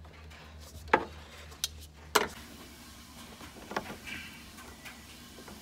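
About five short, sharp clicks and knocks of hand tools, pliers and metal fittings, being handled at an open fuel pump access hole, the loudest about two seconds in, over a faint steady low hum.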